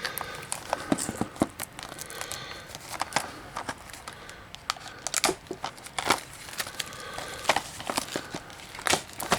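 Plastic shrink-wrap being torn and crinkled off a Blu-ray case, a run of irregular crackles and sharp clicks.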